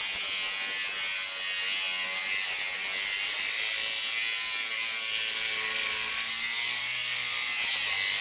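Angle grinder with a cutoff wheel cutting through a steel engine-mount piece clamped in a vise: a steady, high-pitched grinding hiss and whine with no break.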